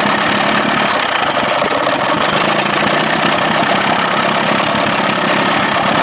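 Johnson 25 hp two-stroke outboard motor running steadily.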